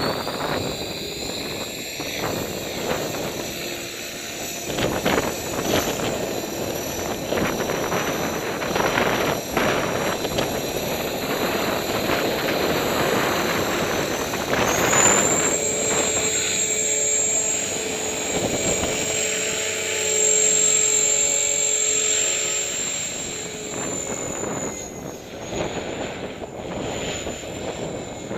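Align T-Rex 500 RC helicopter in flight: a steady high-pitched motor and rotor whine that steps up to a higher pitch about halfway through and holds there, mixed with gusty wind buffeting the microphone.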